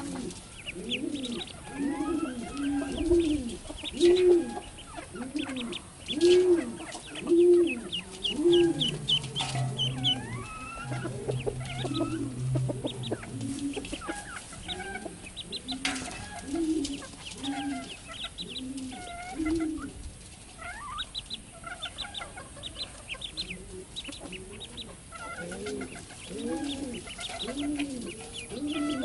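Baby ducklings peeping in quick high chirps, over a low arched call from a bird that repeats about once a second.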